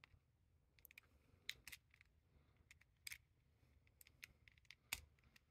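A few faint, sharp clicks of hard plastic puzzle pieces knocking and seating as an edge piece is fitted onto the core of a Corner Helicopter 2x2.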